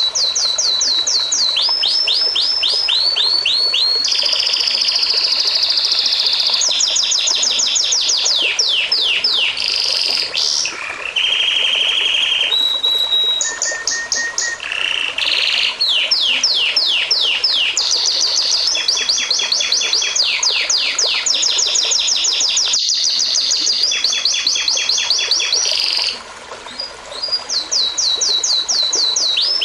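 Songbirds singing in fast, high trills: rapid series of short downward-sweeping notes, with whistled tones in between. The song changes abruptly from one passage to the next, and there is a brief lull a few seconds before the end.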